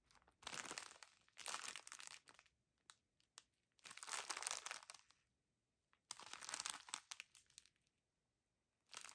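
Clear plastic bag full of packets of diamond-painting drills crinkling as it is handled and turned over, in four short rustling bursts with a few faint clicks in between.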